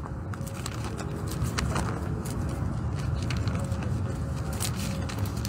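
Thin Bible pages rustling faintly as they are turned, over a steady low outdoor rumble.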